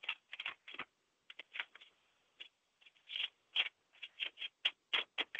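Faint, irregular light clicks and rustles: a couple of dozen short ticks at uneven spacing, thinning out briefly around the middle.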